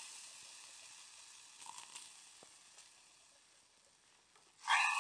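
Canned baked beans sizzling as they hit a hot metal pot on a campfire, with a few faint crackles; the sizzle dies away steadily. A short louder sound comes near the end.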